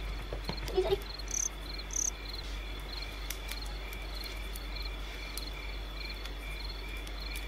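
Crickets chirping in a steady, regular pulse of about two chirps a second, the cricket sound used as a gag for an awkward silence.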